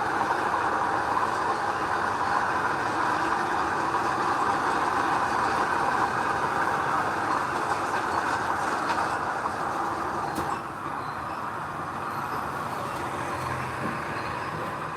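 Steady mechanical noise of a heavy machine running, dropping in level about ten and a half seconds in.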